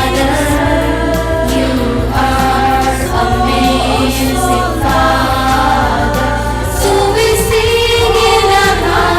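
A choir sings a hymn with a steady deep bass underneath.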